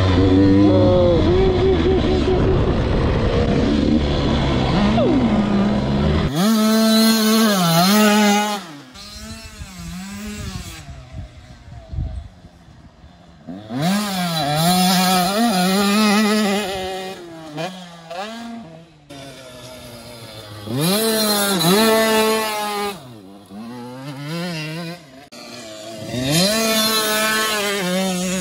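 Motocross dirt bike engine revving up and down through its gears as the bike rides around a dirt track, in four loud runs with the engine fading between them. For the first six seconds or so it is heard from on board the bike, with heavy wind on the microphone.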